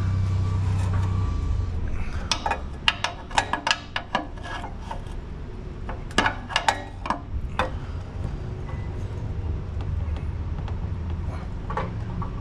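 Metal pry bar clinking and knocking against the exhaust hangers as the rubber hanger isolators are pried off. A quick run of sharp taps comes a couple of seconds in, then another short run near the middle, over a steady low hum.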